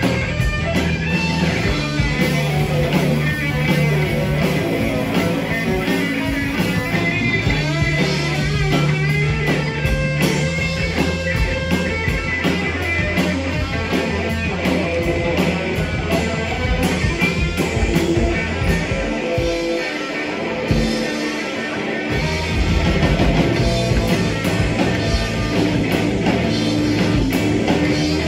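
Live rock band playing: electric guitar over bass guitar and drum kit. About two-thirds of the way through, the bass and drums drop out for a couple of seconds, then come back in.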